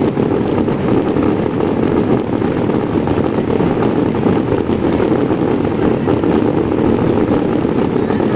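Dense, continuous fireworks barrage: many shells bursting so close together that they merge into a steady, loud rumble, with fine crackling on top.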